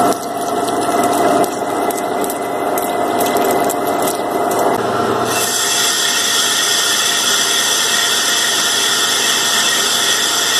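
1943 Sidney 16x54 engine lathe cutting metal: first turning a shaft with irregular ticking from the cut. About halfway through, the sound changes to a steady high whine as it faces a large disc.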